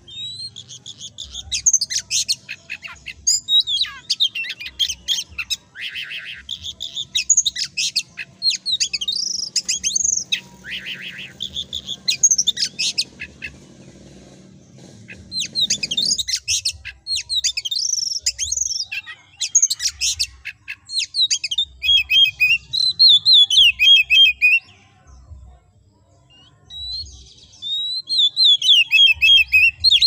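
Oriental magpie-robin singing a loud, varied song of rapid whistles, sweeping notes and trills, delivered in phrases with brief gaps and a longer pause near the end.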